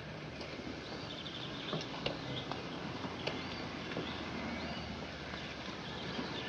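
Outdoor ambience with birds chirping several times over a steady hiss, and a few light footfalls as people step down from a bus.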